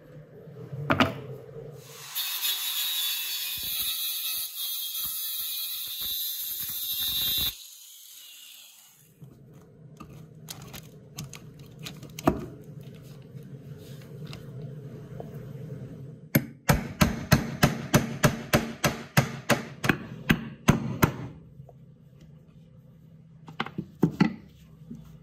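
A loud, steady hiss for about five seconds that cuts off suddenly. Later comes a quick, even run of sharp metal-on-metal hammer taps, about four a second for some four seconds, with a few single clicks and knocks around them.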